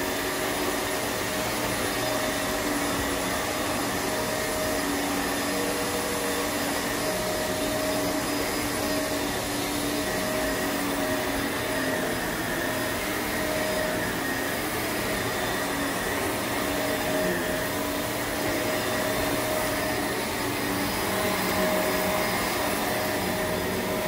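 Upright vacuum cleaner running steadily as it is pushed back and forth over carpet, a constant motor hum with a few steady tones in it.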